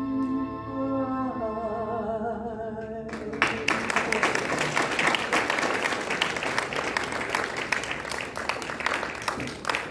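Show choir holding the closing sung notes of a song with vibrato, cutting off about three seconds in; the audience then breaks into applause.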